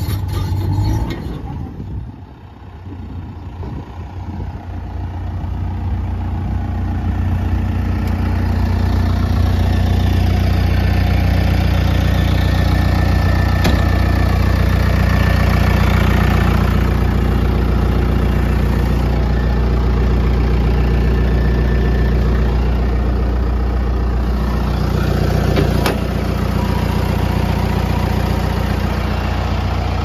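New Holland D95B XLT crawler dozer's diesel engine running, settling to a steady idle. It dips briefly about two seconds in, then grows louder over the next several seconds and holds steady.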